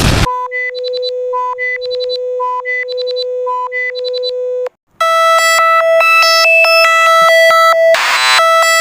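Electronic emergency alert alarm tones: a burst of static, then a steady tone under a pattern of beeps repeating about once a second, cutting off near five seconds. After a brief silence a second alert starts, a steady tone under fast beeping, broken by a short burst of static about eight seconds in.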